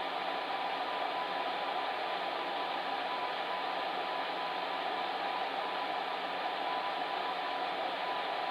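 Electric fan heater running steadily: an even blowing whoosh with a faint steady hum.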